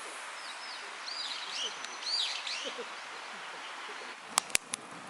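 Birds chirping, a run of short sweeping calls, over a steady outdoor hiss. A little over four seconds in, two loud sharp pops and a smaller one.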